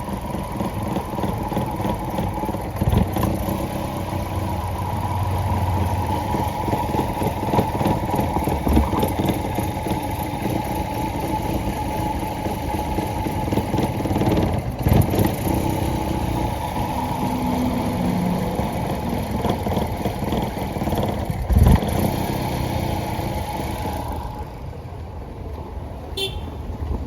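Maruti Suzuki car engine running with a misfire, a steady rough pulsing broken by a few sharp knocks, the loudest about three-quarters of the way through. It runs quieter for the last few seconds.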